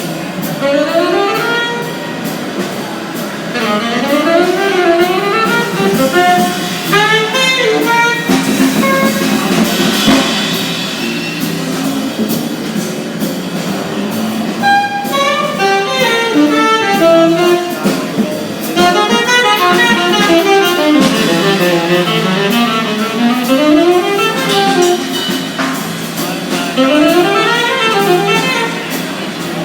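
Music: a melody line winding up and down in quick runs over an accompaniment, with no train sound under it.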